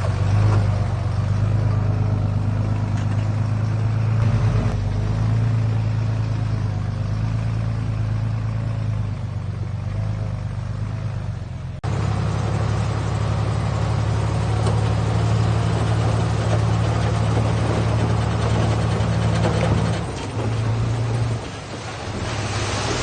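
Diesel engine of heavy earthmoving equipment running steadily, with an abrupt break about twelve seconds in. The engine note drops and wavers about twenty seconds in.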